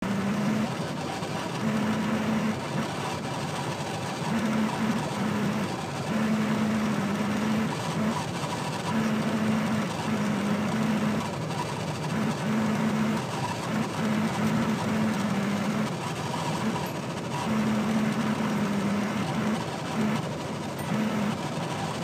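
Inside the cabin of a 1988 Toyota Crown Wagon cruising at around 80–90 km/h: steady engine and road noise, with a low hum that comes and goes every second or two.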